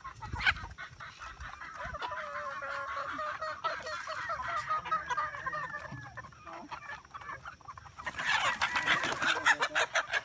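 A flock of young gamefowl chickens clucking and peeping as they feed at a trough. About eight seconds in it turns louder with a scuffle of flapping and squawking, as one bird is caught by hand.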